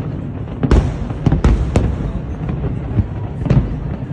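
Aerial fireworks bursting: a run of sharp bangs at irregular intervals, several close together in the first two seconds, over a continuous low rumble.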